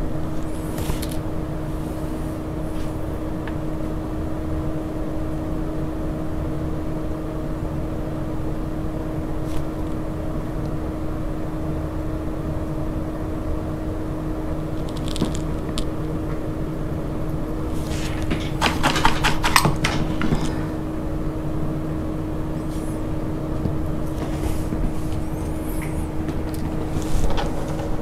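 A steady mechanical hum with one constant tone, with light handling noises over it and a short burst of rustling about two-thirds of the way through, the loudest moment.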